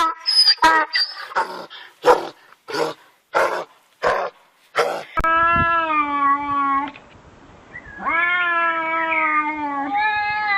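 A pet animal calling: a quick run of short calls for about five seconds, then long drawn-out cries of about two seconds each.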